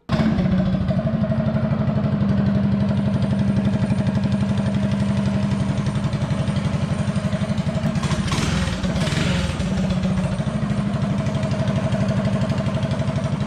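Stock Predator 212 Hemi single-cylinder four-stroke mini bike engine idling steadily, running smoothly on a freshly fitted Mikuni VM22 slide carburetor.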